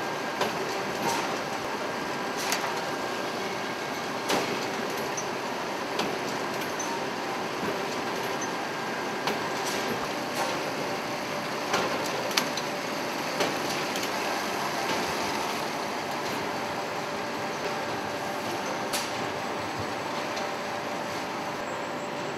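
Forge shop noise while spades are forged: a steady hum of machinery with irregular sharp metal clanks, about a dozen, as hot steel spade blanks are handled and worked.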